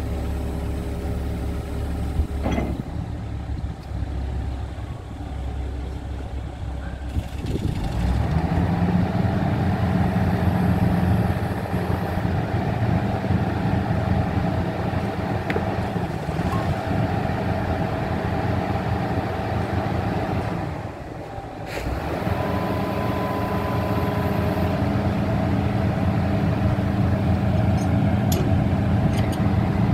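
Hitachi excavator's diesel engine running steadily. About eight seconds in its note rises and gets louder and stays up, with a brief dip a little past twenty seconds.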